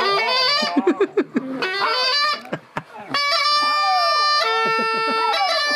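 Bulgarian gaida bagpipe playing, its drone and stepping chanter melody settling into a steady sound about three seconds in. Over it a dog howls along in wavering, sliding wails, loudest in the first half.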